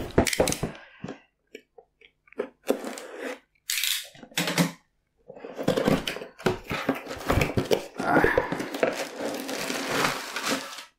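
Cardboard model-kit box being handled and opened: a few knocks as it is tipped on the table, scraping of the cardboard end flap, then continuous rustling and scratching of cardboard and packaging from about five seconds in.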